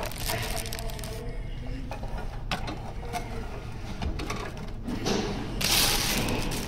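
Handling noises: scattered light clicks and taps with rustling, and a louder rustle from about five seconds in.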